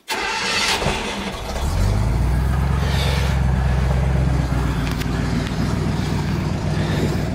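1958 Chevrolet half-ton pickup's V8 engine being started: a short crank, then it catches about a second and a half in and settles into a steady idle.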